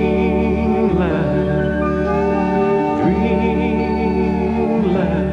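Music from a gentle lullaby-style song between sung lines: sustained, wavering notes over a steady backing, with slow pitch glides about every two seconds.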